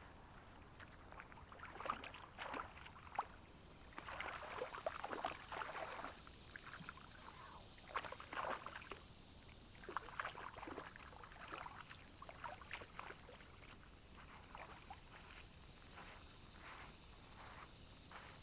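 Kayak paddle strokes splashing and dripping in the water, in faint, uneven bursts with small clicks between them.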